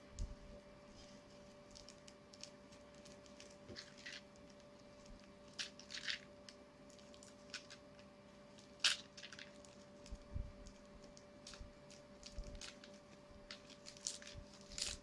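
Faint, scattered crinkles and clicks of a small package being handled and opened by hand, the sharpest click about nine seconds in, over a steady low hum.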